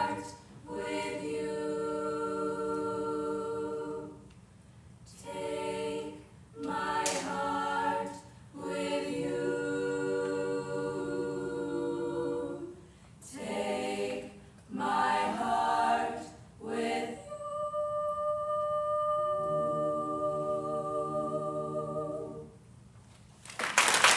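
All-female a cappella group singing the closing phrases of the song in long held chords, a higher voice sustained over the harmony, with short breaks between phrases and the last chord fading out. Applause breaks out at the very end.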